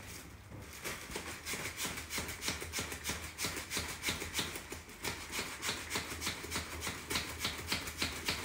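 Small plastic hand pump being worked quickly to inflate a foil balloon: a rapid run of short, hissing air strokes, about four to five a second.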